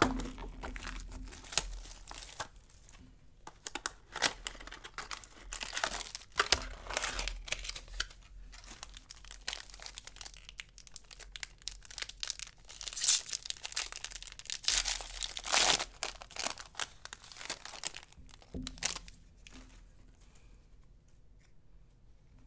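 Foil trading-card pack wrappers being torn open and crinkled by hand: a run of sharp rips and crinkles, loudest about 13 to 16 seconds in and dying down near the end.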